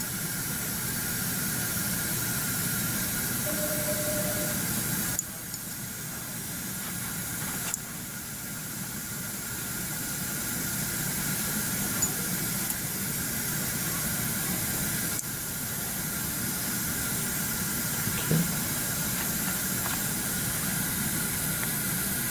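Steady background hiss with a faint steady tone and a low hum. Its level drops abruptly about five seconds in and shifts again near eight and fifteen seconds.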